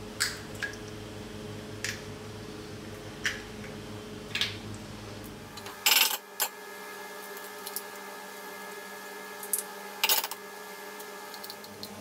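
Eggs tapped on the rim of a stainless steel mixing bowl and cracked open: a series of sharp taps and clinks, mostly single, with louder clusters about six and ten seconds in.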